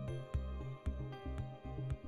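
Background music with a steady beat, about two beats a second, over a bass line and sustained notes.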